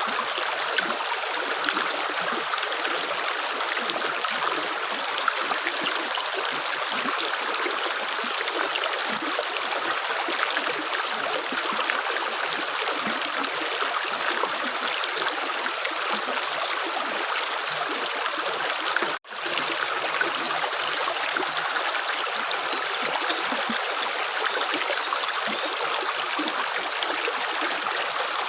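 Continuous running water like a stream, a steady rush dotted with small splashing ticks. It cuts out for an instant about two-thirds of the way through, then carries on unchanged.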